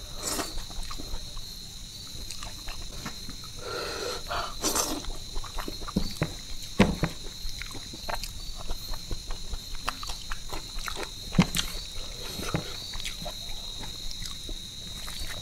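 Close-miked eating sounds: fingers mixing and squeezing rice on a plate, with wet chewing and lip smacks as many small irregular clicks, a few sharper ones. A steady high-pitched tone runs under them.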